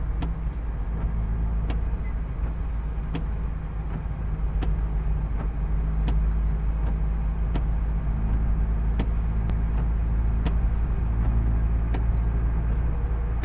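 Steady low drone of a car's engine heard from inside the cabin, with a light tick repeating about every second and a half.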